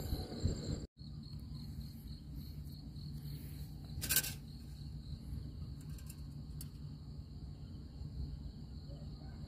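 Insects chirping in a steady high trill over a low steady rumble. The sound drops out for a moment about a second in, and a single short click or clatter comes about four seconds in.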